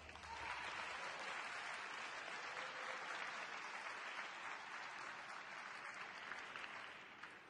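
Audience applauding after a competitor is announced. The clapping sets in right after the introduction, holds steady, and dies away near the end.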